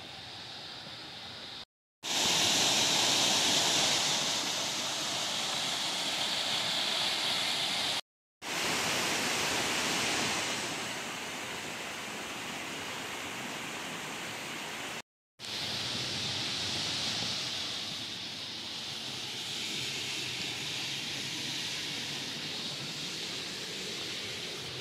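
Steady rushing of a stream running over rock cascades, a hissing wash that is loudest in the first part and broken three times by brief total silences.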